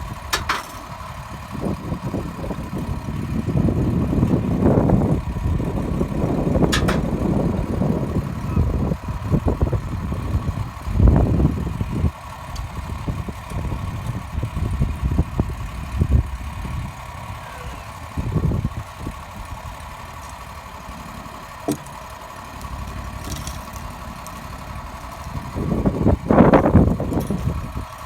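An engine running at idle with a steady hum, with uneven low rumbles that swell a few times.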